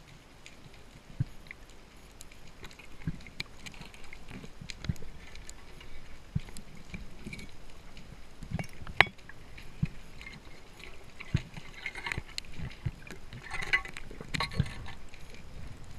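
Underwater sound through an action camera's housing during a spearfishing dive: scattered clicks and dull knocks, with one sharp, loud crack about nine seconds in. A stretch of hissing, crackling noise follows near the end.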